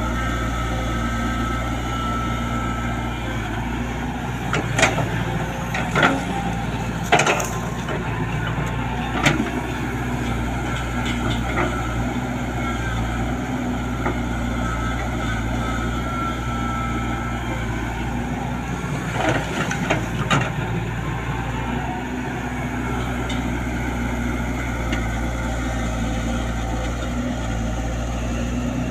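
Sany SY135F excavator's diesel engine running steadily under a wavering whine, with sharp knocks and clanks, a cluster of them about five to nine seconds in and two more about two-thirds of the way through.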